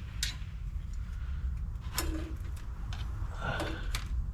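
A few sharp clicks and light taps from handling tools and parts, over a low steady rumble.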